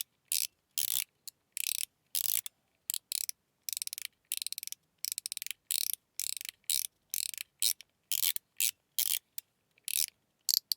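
Seki Ripple mechanical fidget slider in PEI, stock and unmodified, being slid up and down: a crisp, bright click-rattle at each stroke, about two to three a second.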